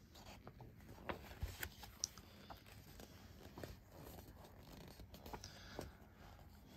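Faint rustling and crackling with scattered irregular clicks: paper being handled, the pages of a collector's magazine being turned.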